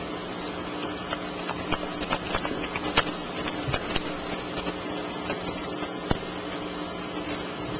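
Scattered light clicks and taps of playing cards and hands on a tabletop, the sharpest about three seconds in, over a steady low electrical hum.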